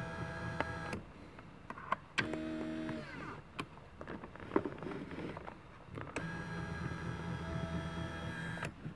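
BMW E46 power-seat fore-aft motor running steadily, held by hand on its input shaft, driving the seat rearward. It stops about a second in, gives a short lower-pitched hum around two seconds in, then runs again from about six seconds to near the end, with light handling clicks.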